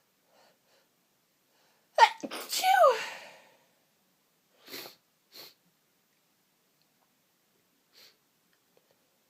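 A woman's loud sneeze bursts out about two seconds in, its voiced tail falling in pitch. Two short breaths follow, then a faint one near the end.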